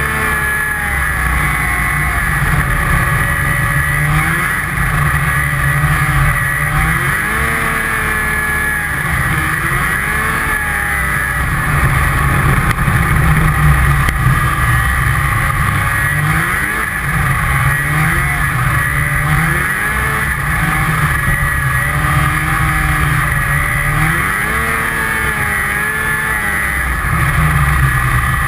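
Snowmobile engine running hard at speed, its pitch rising and falling again and again as the throttle is opened and eased over the bumps of the ditch.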